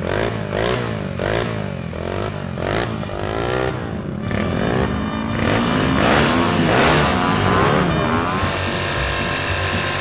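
Small mini bike engines being revved: a quick run of short throttle blips, each a rising sweep, during the first four seconds, then longer rising and falling revs with more than one engine going at once. Near the end the sound settles into a steadier drone.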